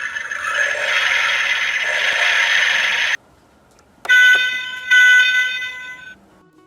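A steady hiss that cuts off suddenly about three seconds in, then, after a short pause, two bright chime strikes less than a second apart, each ringing out.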